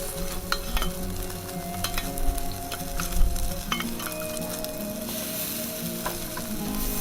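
Chicken-skin skewers sizzling over charcoal, with many small sharp crackles and pops. Held tones of background music run underneath.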